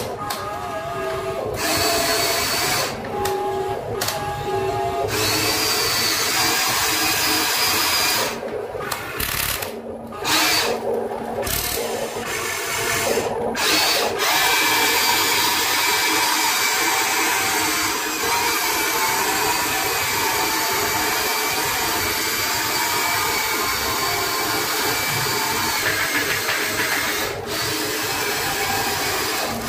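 Small electric motors and plastic gearboxes of a remote-control toy excavator whining as the boom, bucket and tracks move. They start and stop several times in the first half, then run steadily.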